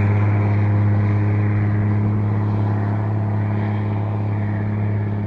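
Heavy truck's diesel engine pulling under a load of over a thousand concrete blocks, heard from on top of the load: a loud, steady, deep drone holding one pitch.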